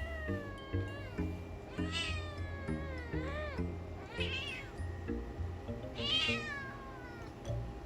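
A cat meowing about five times, drawn-out calls that rise and fall in pitch, over cheerful background music.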